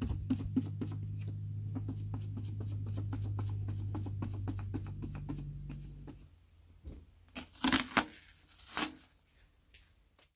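A paint sponge dabbing quickly on a paper stencil, with many short taps over a steady low hum that stops about six seconds in. Near the end come a few loud rips as the masking tape and paper stencil are peeled off the metal lid.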